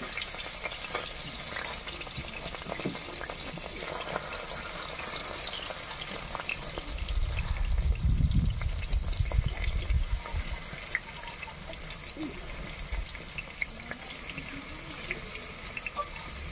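Fish curry simmering and sizzling in a wide wok, a steady hiss, with a low rumble for a few seconds in the middle.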